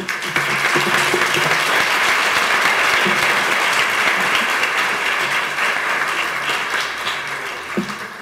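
Audience applauding, starting as the speech ends and dying away near the end.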